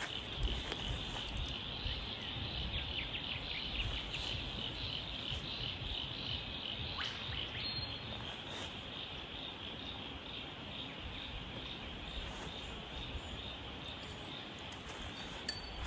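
A steady insect chorus: a high, continuous trill that pulses about twice a second.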